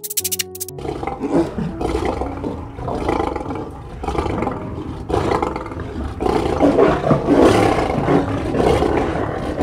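Lion roaring, a run of long, rough calls that swell and fade one after another, loudest in the second half.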